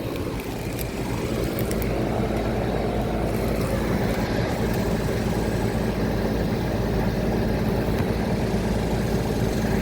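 Outdoor air-conditioner condensing units running in cooling mode: a steady compressor hum with the rush of condenser fans.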